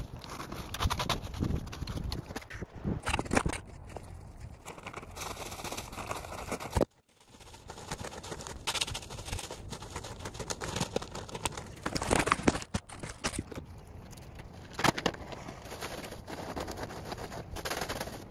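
Dry fallen leaves crackling and rustling as they are scooped up by hand and raked, with the rake scraping over the asphalt court. The sound cuts out abruptly for a moment about seven seconds in.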